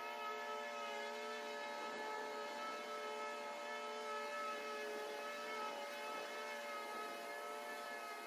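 Riding lawn mower running steadily while cutting grass: a constant engine-and-blade whine that holds its pitch.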